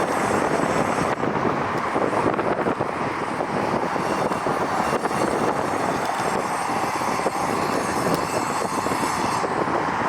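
Jet airliner engine noise, steady throughout, mixed with gusty wind buffeting the microphone.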